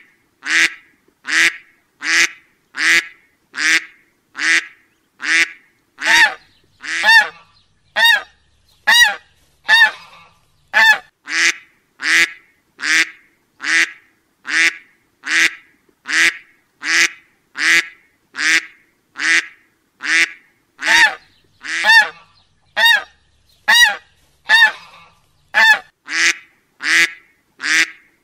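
Duck quacking over and over at an even pace, about three quacks every two seconds.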